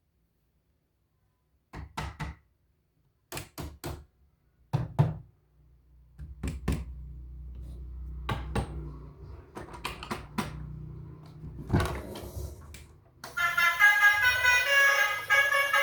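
A string of sharp clicks and knocks, about a dozen in irregular groups, with a low hum underneath from about five seconds in. Music with several steady tones starts near the end.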